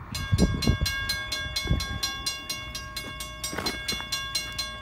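Railroad grade-crossing bell starting up and ringing in rapid, even strokes, about five a second, the crossing warning of an approaching train. A few low thumps sound under it in the first two seconds.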